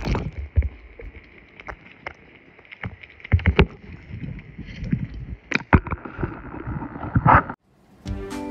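A pet lapping and splashing water from a bowl, heard close up: irregular wet laps, sloshes and sharp knocks against the bowl. These stop abruptly, and music starts near the end.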